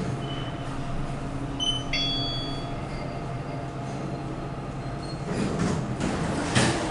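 Traction elevator car running between floors: a steady motor and ride hum with a short high electronic beep about two seconds in. From about five seconds in, a rush of rattling noise rises and ends in a sharp knock near the end as the car comes to a stop and the doors begin to move.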